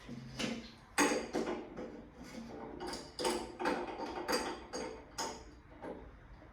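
Irregular clinks and knocks of metal tools and fittings being handled, a dozen or so sharp hits, some ringing briefly.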